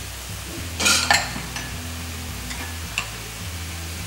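Hot masala sizzling in a frying pan as yogurt is stirred into it with a steel ladle, a louder hiss and scrape about a second in and a light clink near three seconds.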